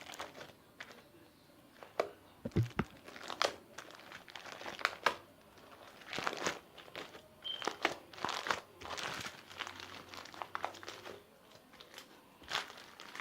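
Homemade slime packed with confetti being squeezed and pressed by hand close to the microphone, giving irregular crunching and crackling as the confetti pieces break and crinkle inside it.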